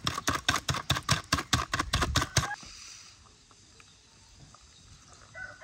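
Wire whisk beating egg yolks and sugar in a plastic bowl: quick, even clicking of the wires against the bowl, about five strokes a second, which stops about two and a half seconds in.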